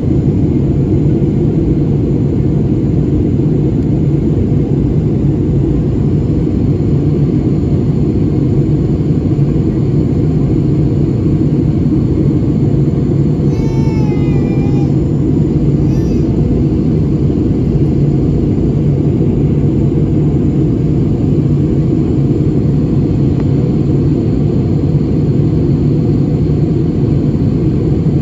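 Steady cabin noise inside an Airbus A320-family airliner in flight: a constant low drone of the jet engines and rushing air heard at a window seat.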